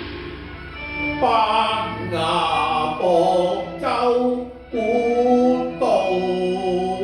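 Music for a Cantonese song: a melody of held notes over an accompaniment, each note changing about once a second.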